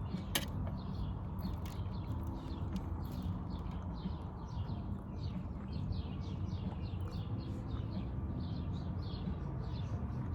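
Close-miked chewing and mouth sounds of someone eating rice and chicken: a quick, irregular series of small wet clicks, several a second, over a low steady hum, with one sharp click about half a second in.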